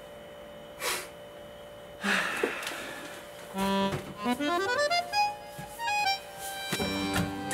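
Background music: a comical accordion tune that comes in about two seconds in, with a quick rising run of notes, then held chords near the end.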